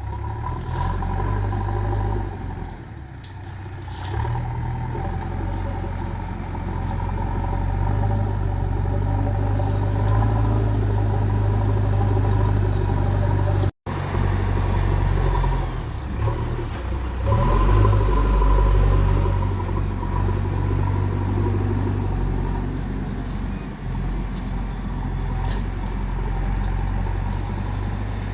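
Diesel engine of a JCB digger running steadily, its note swelling and easing as the machine works, louder for a while just past the middle. The sound cuts out for an instant about halfway through.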